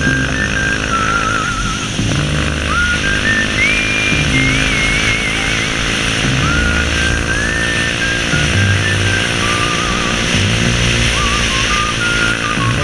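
Instrumental passage of a western-style song: a high lead melody with wavering pitch over bass notes and chords that change in steps. A small motorcycle engine runs underneath.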